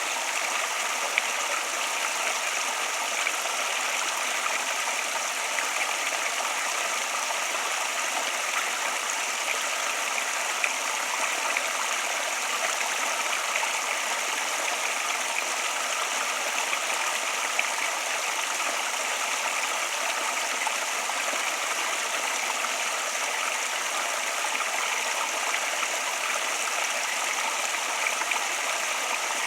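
Flowing water running steadily: an even, continuous rush with no pauses.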